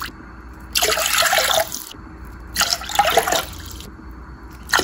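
Water poured into a granite-coated nonstick saucepan, splashing in three short pours of about a second each.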